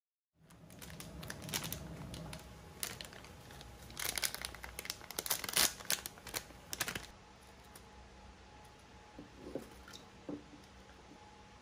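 Crinkling and rustling of something being handled, with a run of sharp crackles between about four and seven seconds in, then quieter with a couple of soft taps.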